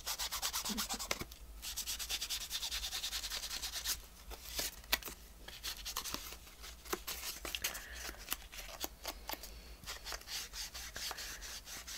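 Ink applicator rubbed against the edges of a paper piece to ink and distress them. Quick, continuous scrubbing strokes for the first few seconds, then slower, separate dabs and rubs.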